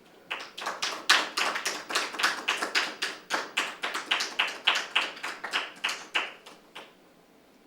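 Hand clapping in applause: distinct, separate claps at about four a second, stopping about a second before the end.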